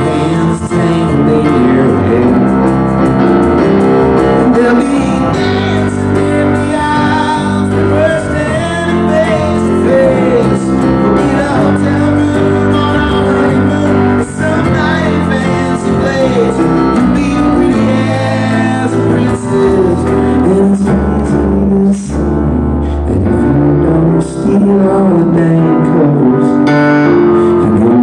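Live band music: an electric stage piano and a drum kit playing, with a man singing.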